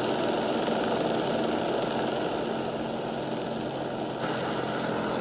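Propeller-plane engine running steadily under a constant rush of wind.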